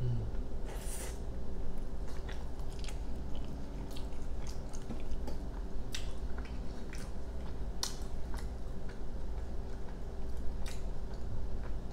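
A bite into a soft flour-tortilla burrito, then close-miked chewing with small wet mouth clicks. A faint steady hum runs underneath.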